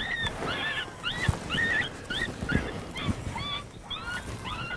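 Rapid series of coyote yips: short, high-pitched rise-and-fall notes repeating about three to four times a second.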